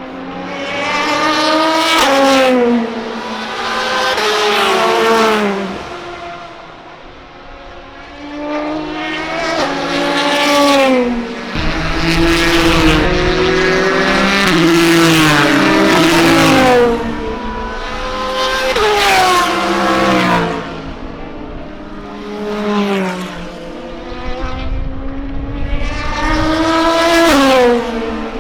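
Endurance race cars passing at speed one after another, each engine note sweeping down in pitch as it goes by, about six or seven passes that sometimes overlap.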